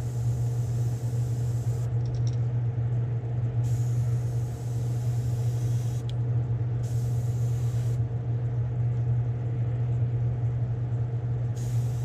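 Iwata gravity-feed airbrush, run at low pressure, hissing in several short bursts of a second or two as paint and air are sprayed, over a steady low motor hum.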